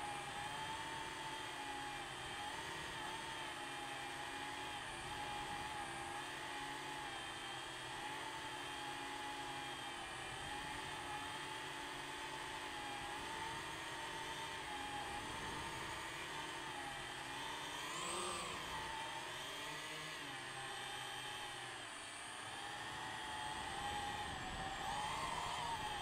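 DJI FPV drone's motors and propellers whining steadily in flight, the pitch wavering with the throttle. The whine sweeps up sharply about two-thirds of the way through and again near the end as the drone throttles up and climbs.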